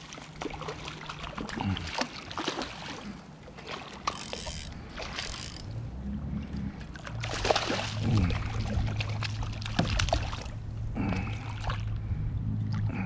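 Irregular splashes, knocks and rattles from a kayak as a hooked barracuda is reeled in alongside. A low steady hum comes in about halfway through.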